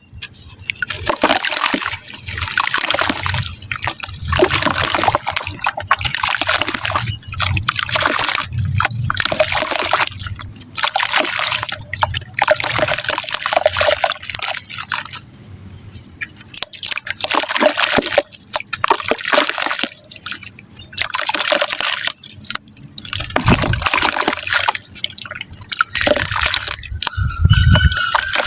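Soft wet mud crumbling and splashing into water, in repeated crunchy, sloshing bursts a second or two long with short pauses between them. Near the end there is a low thump.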